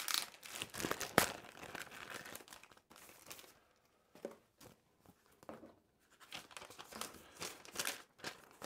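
Paper and packaging rustling and crinkling as an instruction manual is taken out and handled, with a sharp click about a second in. The rustling is densest at first, then comes in sparser bursts with short pauses.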